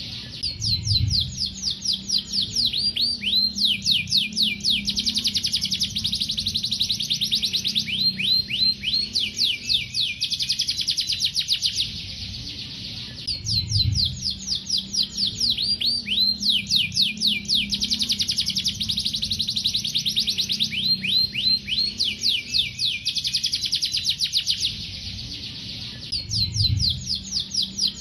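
Male domestic canary singing a fast, continuous song of rapid trills and down-sweeping chirps, with two brief lulls about 13 seconds apart. A low hum runs underneath.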